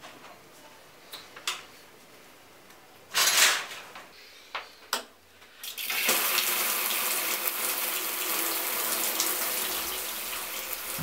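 Wall-mounted shower taps being turned, with a few clicks and a short loud burst of noise. About six seconds in the shower spray comes on and runs steadily.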